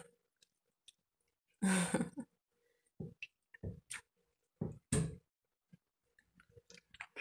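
Short wet squelches and clicks as bare hands pull the innards out of a raw octopus, a few scattered irregularly, with a longer one about two seconds in.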